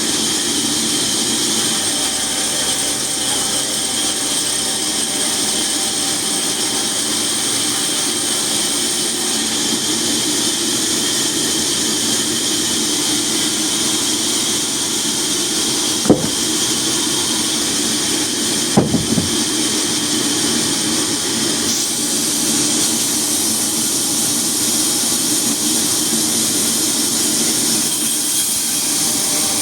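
Woodworking machinery running steadily with a high hiss and whine over a low drone. There is a sharp knock partway through and a quick cluster of knocks a few seconds later.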